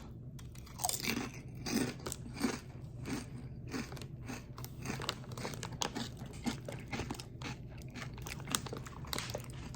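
Close-up crunching of a thick, hard kettle-cooked tortilla chip (Takis Kettlez) being bitten and chewed: many quick, irregular crunches.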